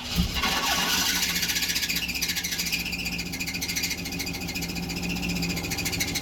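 GM truck V8 engine running right after starting, after being seized, with a loud high screech over a fast, ragged pulsing. Its spark plug wires on cylinders 6 and 8 are crossed, so it is cross-firing. The owner thinks the screech comes from a piston ring stuck in a piston.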